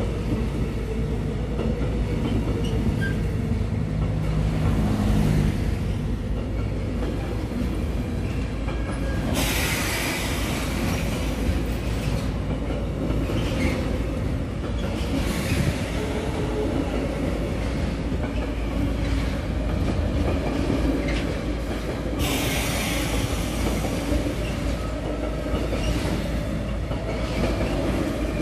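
Freight train carrying lorry semi-trailers on low pocket wagons rolling past, a steady rumble of wheels on rail with some clickety-clack. A high hissing screech from the wheels comes in suddenly about nine seconds in and again about twenty-two seconds in, each lasting a few seconds.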